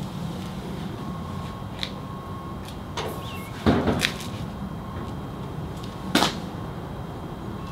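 Metal knocks from a first-generation Ford Bronco's steel door being worked by hand as it is fitted: two sharp clunks, the louder one near the middle and another about six seconds in, with a few lighter clicks.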